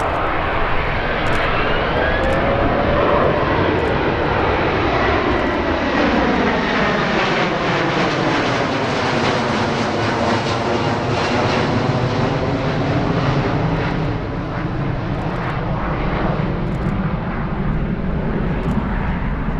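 Airbus A330 MRTT Phoenix's two Rolls-Royce Trent 700 turbofans during a slow, gear-down low pass: steady, loud jet noise that swells into a phasing swoosh as the aircraft passes overhead about ten seconds in, then carries on as it flies away.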